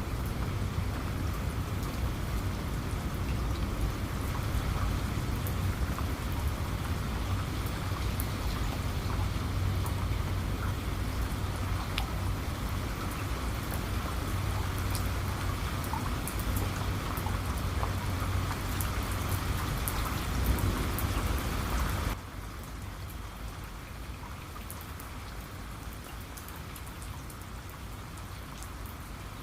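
Steady rain falling, with fine drop ticks over a heavy low rumble. About three-quarters of the way through, the sound drops abruptly to a quieter, lighter rain without the rumble.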